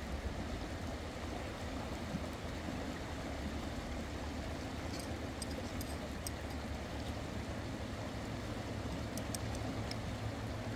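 Steady rush of flowing stream water, with a few faint light clicks about halfway through and again near the end.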